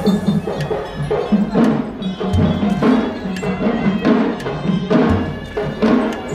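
Traditional percussion music with a steady repeating rhythm: quick, sharp, wood-block-like strikes over a deep drum beat that comes about every two and a half seconds.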